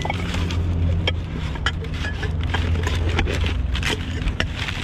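Sharp clicks and knocks of discarded items being moved and handled while rummaging through a dumpster, over a steady low machine hum.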